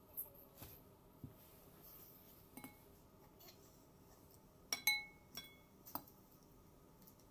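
Metal fork clinking and scraping against a glass bowl of noodles: scattered light clinks, the loudest two close together about five seconds in, each ringing briefly.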